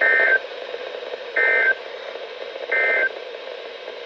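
NOAA Weather Radio end-of-message (EOM) bursts of the Emergency Alert System: three short, harsh digital data-tone bursts about 1.4 seconds apart, marking the end of the alert, over a steady radio hiss.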